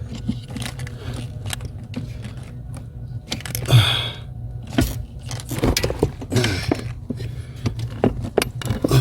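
Metal parts and tools clinking, rattling and scraping while the pedal assembly is worked loose under a car's dashboard, with a brief scraping rustle about four seconds in, over a steady low hum.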